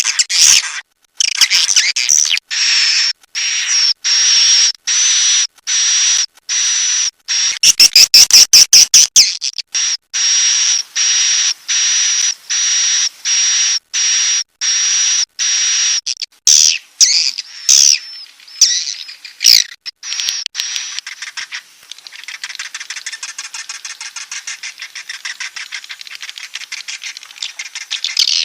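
Edible-nest swiftlet calls from a 'inap' roosting lure recording. Harsh buzzy chirps repeat about once every 0.7 s, with a run of loud fast clicks about 8 seconds in. From about 21 seconds in the calls give way to a softer, continuous fast twittering chatter.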